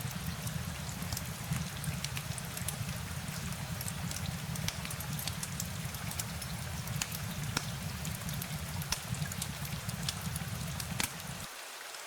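Steady rain falling, with many sharp drop ticks scattered through it and a low rumble underneath that drops out briefly near the end.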